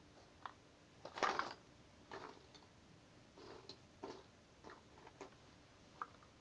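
Cardboard jigsaw puzzle pieces being handled: faint, irregular clicks and rustles, with a louder rustle about a second in.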